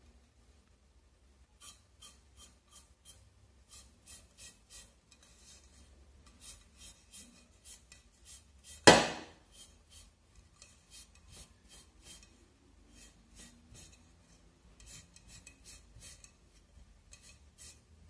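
A damp cloth rubbing over a painted vase in runs of short, quick strokes, wiping off excess bitumen stain to leave an aged look. About halfway through there is a single sharp knock, the loudest sound.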